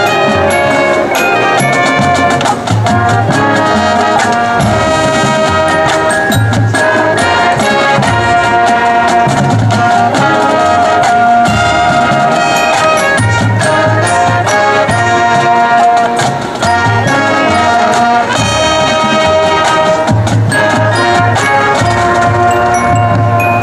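High school marching band playing loud sustained brass chords and melody over marching and front-ensemble percussion.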